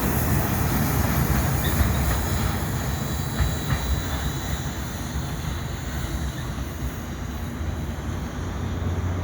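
Loaded mineral hopper wagons of a freight train rolling past on the rails, a steady rumble with a few wheel clicks and a faint wheel squeal, easing off slightly towards the end.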